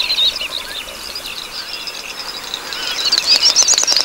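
Great snipes' babbling lek song: many high, twittering chirps. About three seconds in comes a run of rapid clicks with louder twitters.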